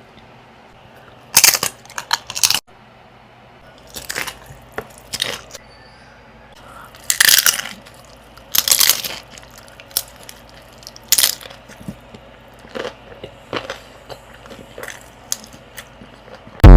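Close-miked crunching of crisp food as someone bites and chews, sharp crackly bursts coming irregularly every second or two. A sudden loud burst starts right at the end.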